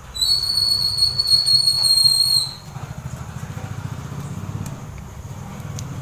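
Multimeter continuity buzzer giving one steady, high electronic beep of a little over two seconds. After it a quieter low hum with a fast pulsing runs on.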